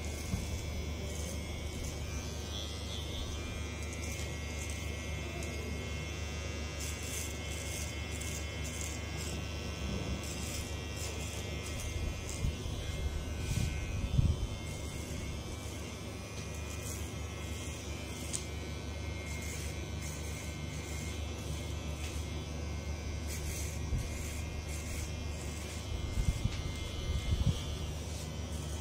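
Cordless electric hair clipper buzzing steadily as it shaves the short hair at the nape of the neck, with louder bursts a little before halfway and again near the end.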